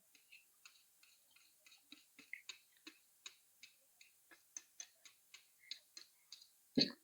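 Close-miked chewing of spicy instant noodles: a string of soft, wet mouth clicks, about three a second, with one louder sound near the end.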